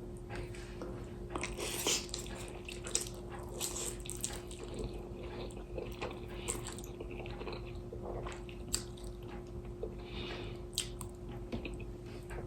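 A person slurping and chewing hot Korean instant ramen noodles: irregular wet mouth sounds and small clicks, with a faint steady hum underneath.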